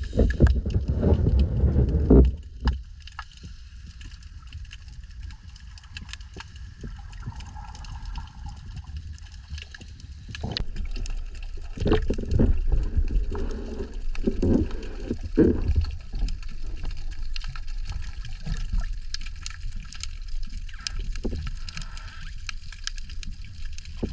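Underwater camera audio: a muffled low rumble and gurgling of water moving around the camera housing, with scattered clicks and ticks. Stronger surges come in the first couple of seconds and again from about eleven to sixteen seconds in.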